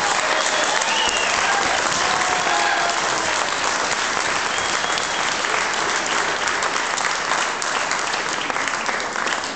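Audience applauding, a dense steady clapping with a few voices calling out over it; the applause eases slightly near the end.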